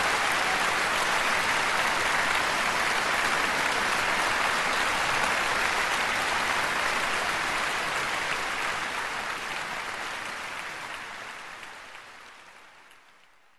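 Sustained applause from a concert-hall audience, with the orchestra players clapping too, steady at first and then fading out over the last five seconds or so.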